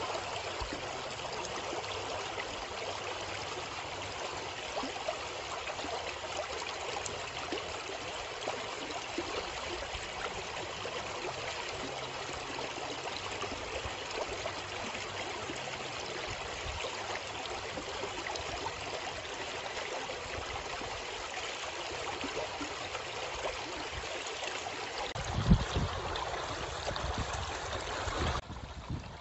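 Steady rushing of stream water flowing over rocks. Near the end a brief low rumble rises over it, and then the water sound cuts off suddenly.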